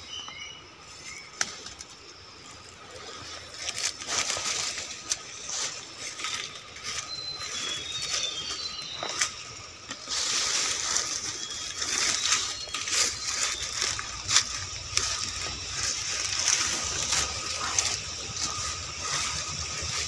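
Footsteps and leaves and fern fronds rustling and crackling as a person pushes through forest undergrowth, louder from about ten seconds in. A bird gives a few short high chirps near the middle.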